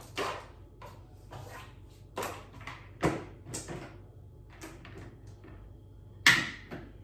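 Irregular knocks and clatters of household items being handled and set down during kitchen cleaning, with the loudest knock about six seconds in.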